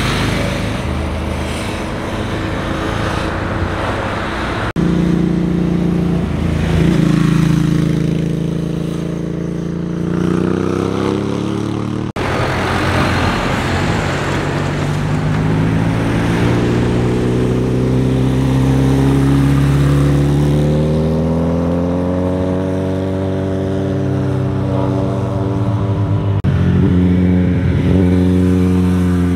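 Motorcycle engines passing through a tight bend one after another, their pitch falling and rising as the riders roll off and accelerate out of the corner. The sound cuts abruptly twice, about five and twelve seconds in, as one pass gives way to the next.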